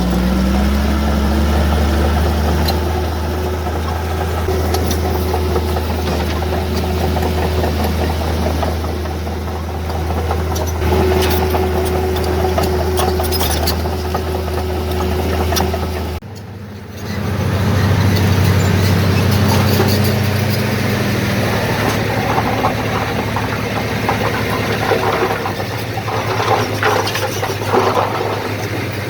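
Heavy diesel earthmoving machinery running, a low steady engine drone. About halfway through the sound drops out for a moment and resumes with a different engine note, with scattered knocks and clanks near the end.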